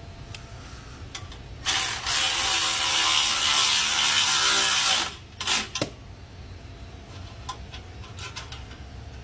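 Hand ratchet wrench clicking rapidly for about three seconds, then two short bursts, as the exhaust test-pipe bolts are tightened. Faint scattered clicks of tools are heard around it.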